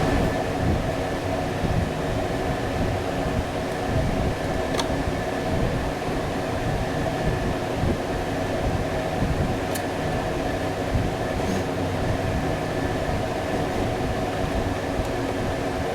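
Steady mechanical whirring hum of a running machine with a constant whine, unchanging throughout, with a couple of faint clicks.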